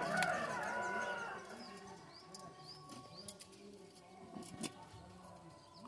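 Birds chirping repeatedly, with a few sharp clicks and knocks as goats feed from a metal bowl of grain; a brief louder run of curving calls comes in the first second or so.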